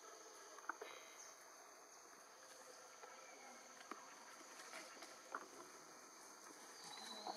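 Faint steady high-pitched insect drone in forest, with a few soft sharp clicks and a short high chirp near the end.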